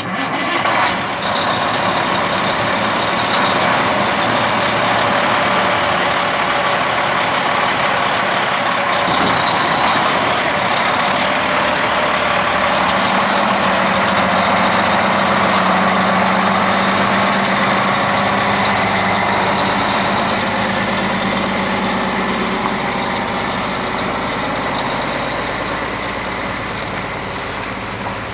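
A truck on the move: steady engine and road noise, easing off slightly near the end.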